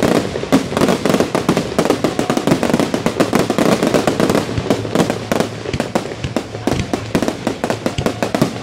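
Aerial fireworks display: a dense, unbroken barrage of shell bursts and crackling glitter, many reports a second.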